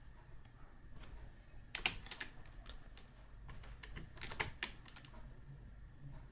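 Faint clicking of computer keyboard keys, in two short irregular clusters about two seconds and four seconds in.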